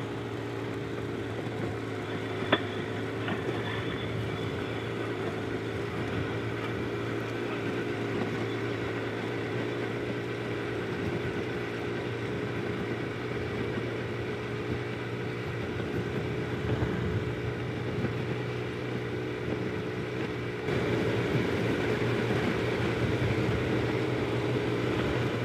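Benelli TRK 502X's parallel-twin engine running steadily at a low, even speed, with no revving. A single click about two and a half seconds in, and the engine gets a little louder about 21 seconds in.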